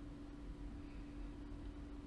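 Faint room tone: a steady low hum under a light hiss, with no distinct events.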